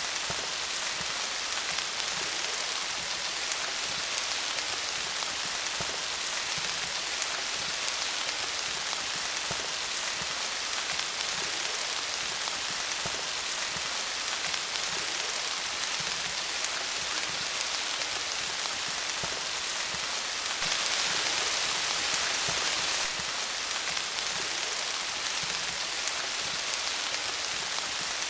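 Steady rain falling on leaves, a dense even hiss of many drops, briefly a little louder for a couple of seconds about three-quarters of the way through.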